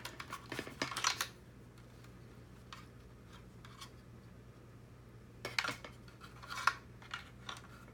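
Small plastic robot-kit parts and cables being handled and pressed into a cable guide: short clicks and rustles in two clusters, one at the start and another about two-thirds of the way through.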